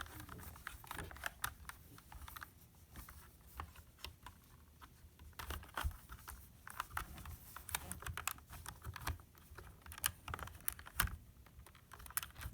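Plastic LEGO puzzle-box parts clicking and rattling as they are handled, twisted and slid by hand: an irregular string of small, quick clicks.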